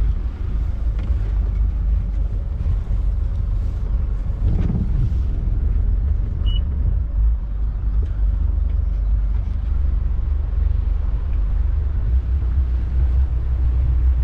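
Motor cruiser's engines running at low speed in gear as the boat is manoeuvred slowly out of its berth: a steady low rumble. There is a brief louder surge about four and a half seconds in and a short beep about two seconds later.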